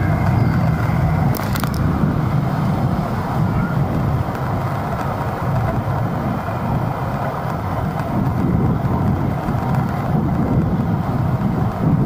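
Steady rumble of wind and road traffic heard from a moving bike in city streets, with a couple of sharp clicks about a second and a half in.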